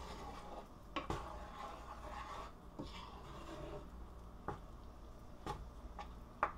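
A spatula scraping and stirring through chicken in pesto sauce in a frying pan, with several sharp clicks and taps of the utensil against the pan spread through.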